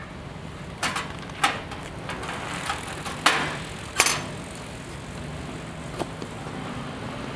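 Sharp metal knocks and clacks at the letter slot of a red Japan Post street post box as mail is pushed in, four loud ones in the first four seconds and a fainter one later, over a steady low street hum.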